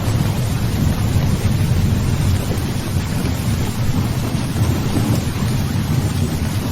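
Thunderstorm: steady rain hiss over a continuous low rumble of thunder, with no sharp clap.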